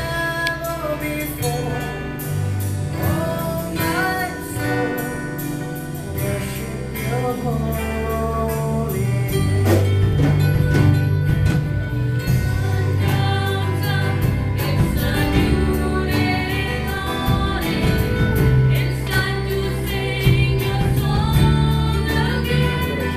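Live worship band playing a gospel song: several voices singing together over keyboard and acoustic guitar, growing fuller and louder about ten seconds in.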